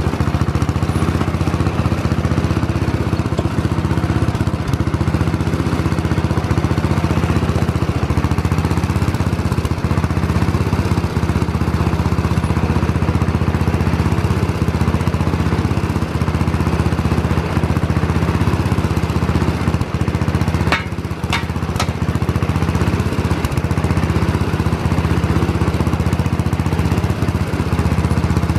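1970 Sears SS14 garden tractor engine running steadily. About three-quarters of the way through the level dips briefly and a few sharp clicks sound.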